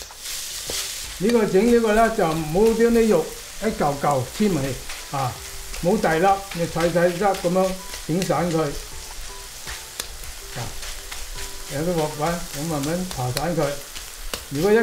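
Ground beef and green onion whites sizzling as they are stir-fried in a wok, with a metal wok spatula repeatedly scraping and tapping against the pan as it breaks up the meat.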